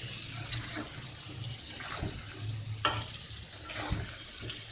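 Potato chunks sizzling as they fry in oil in a steel kadai, with a metal spatula scraping and clinking against the pan as they are stirred, a few sharp clinks standing out, the loudest about three seconds in.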